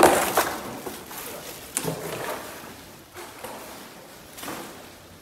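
A shovel scraping and knocking through wet debris on a flooded floor: a loud scrape at the start and another about half a second later, then quieter scrapes about two seconds and four and a half seconds in.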